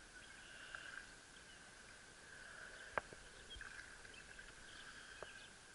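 Near silence: faint outdoor ambience with a few soft bird chirps and a steady faint hum. Two sharp clicks stand out, about three seconds in and again about five seconds in.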